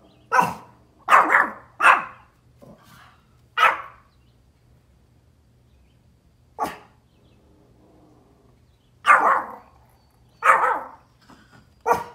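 Pomeranian barking in short, sharp, high barks: a quick run of about six in the first four seconds, a single bark in the middle, then three more near the end. The barks are alert barking at deer seen outside.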